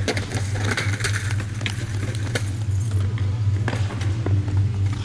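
Skateboard urethane wheels rolling on concrete, with a series of sharp clacks and slaps of the board against the ground, over a steady low hum.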